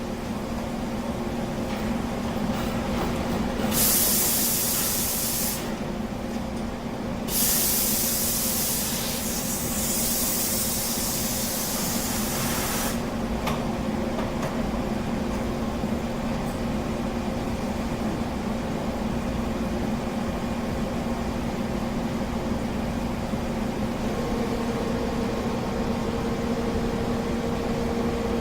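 CNC boring mill running with a steady mechanical hum. Loud hissing spray bursts come about four seconds in and again for several seconds from about seven seconds in. A second hum note joins near the end.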